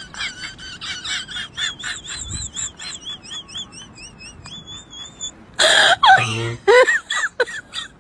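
Rapid high-pitched giggling that slows and falls off over about five seconds. A loud sudden noise follows, then a voice crying out near the end.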